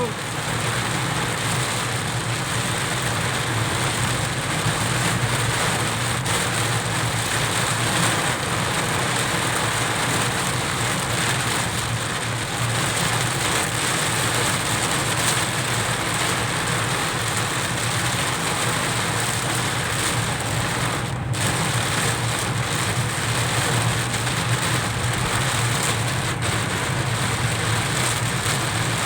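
Heavy rain falling on a car, mixed with the car's steady engine and road noise.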